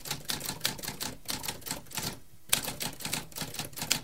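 Typewriter typing: a quick run of sharp keystrokes, several a second, with a short pause about two seconds in before the typing resumes.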